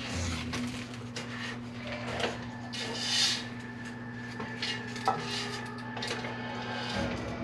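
Spatula stirring a sticky mix of Rice Krispies cereal, crushed Oreos and marshmallows in a large pan, with irregular scrapes and knocks against the pan. A steady low hum runs underneath.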